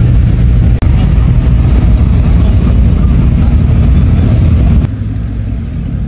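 V8 car engines rumbling loudly at low speed as classic cars drive in. Two abrupt cuts break it, one about a second in and one near five seconds, and after the second a quieter engine carries on.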